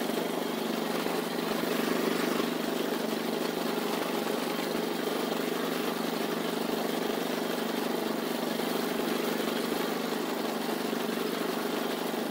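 Small engine of a walk-behind farm machine running steadily at an even speed as it works down a field.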